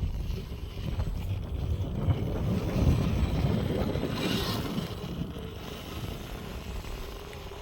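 Wind rumbling on the microphone over an RC scale crawler driving across rough ground, with a short scraping hiss about four seconds in.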